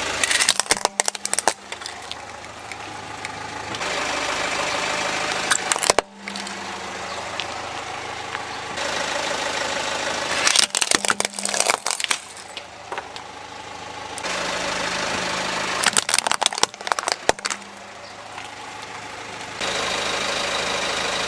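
A car's tyre rolling over small toy vehicles, crushing them in several short bursts of cracking and crunching a few seconds apart. The car's engine idles steadily between the crushes.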